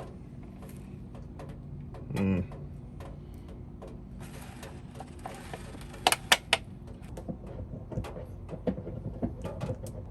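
Handling noises while a removed fuel strainer is examined: scattered small ticks and a cluster of sharp clicks about six seconds in, over a steady low hum. A brief low vocal sound comes about two seconds in.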